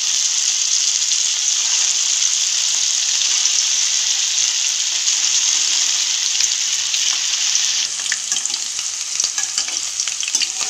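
Raw chicken koftas frying in hot oil in a pan: a dense, steady sizzle that about eight seconds in turns thinner and crackly, with scattered pops.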